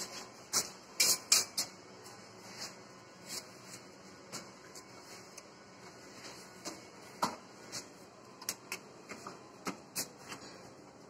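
A trowel scraping and knocking in a plastic bucket of tile adhesive, heard as irregular sharp clicks and scrapes, with a cluster of louder knocks about a second in.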